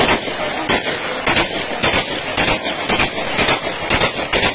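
Celebratory gunfire: a rapid, uneven string of sharp shots, about four to five a second, fired into the air over a crowd.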